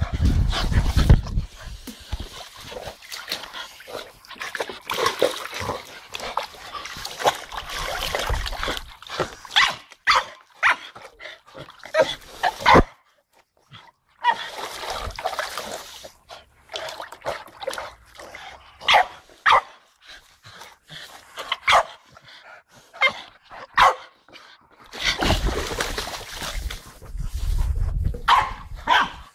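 Two Staffordshire bull terriers playing rough over a basketball: short barks and other dog noises in quick irregular bursts, with water splashing in a paddling pool. Stretches of low rumbling noise near the start and near the end.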